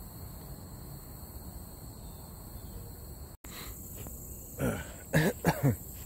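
Faint steady outdoor background with a thin, steady high hum. After a sudden cut, a person coughs and clears their throat in a few short, loud bursts near the end.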